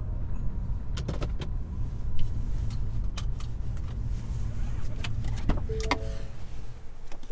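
Low, steady rumble inside a Ford van's cab, with a scatter of sharp clicks and knocks, a cluster about a second in and more later on.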